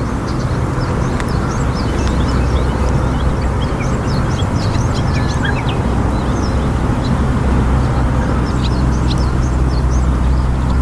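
Small birds chirping in many short, high, scattered notes over a steady low rumble.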